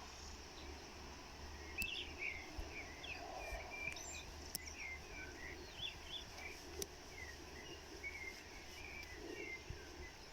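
Small birds calling in a quick series of short high chirps, starting about two seconds in, over a faint steady outdoor background noise.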